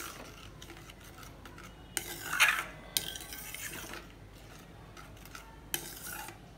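Steel spoon stirring thick gravy in a stainless-steel pan: soft scraping with a few light clinks of metal against the pan, the loudest about two and a half seconds in.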